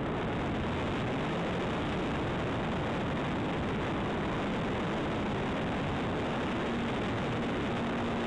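Onboard sound of a model Zivko Edge 540 aerobatic plane in flight: a steady rush of wind and propeller noise, with a faint hum from the power plant that steadies into a clearer tone in the second half.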